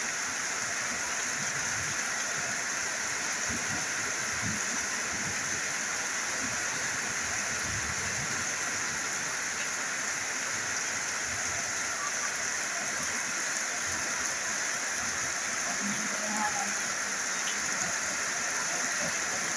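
Steady rain falling on corrugated metal roofs, an even hiss at a constant level.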